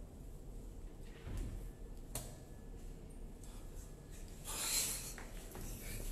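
Small handling sounds of over-the-board blitz chess in a quiet room: a sharp click about two seconds in, and a short sliding, scraping sound near the end, as pieces are set down and moved.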